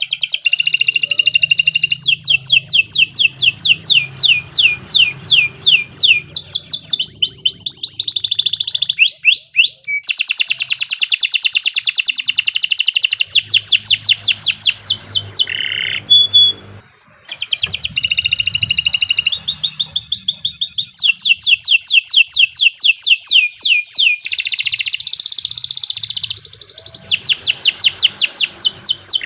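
Domestic canary in full song: a long run of fast trills, each made of rapidly repeated sweeping notes that switch to a new note type every second or two, with a brief pause a little past halfway.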